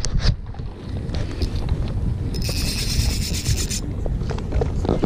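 A small spinning reel whirring with a raspy, fast-ticking sound for about a second and a half in the middle while a hooked fish is played on light line, over wind rumbling on the microphone.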